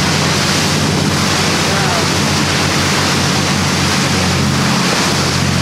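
Speedboat's Yanmar diesel engines running at speed with a steady low drone, over the rush of its surface-drive wake.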